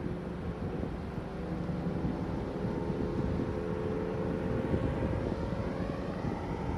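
A vehicle engine running steadily at constant speed, a low drone.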